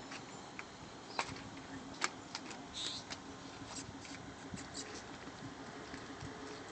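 Mountain bikes being handled at a pickup's tailgate: a few faint, sharp clicks and knocks, the sharpest about two seconds in, over a steady low hum.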